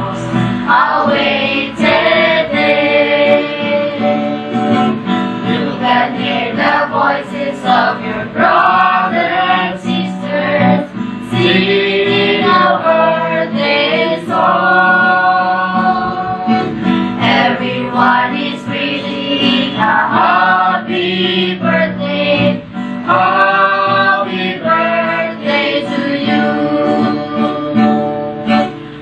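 Group of adult and child voices, men and women, singing a song together to an acoustic guitar.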